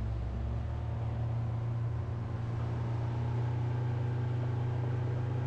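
Boat engine running steadily under way with a constant low drone, over the rush of the wake churning behind the hull.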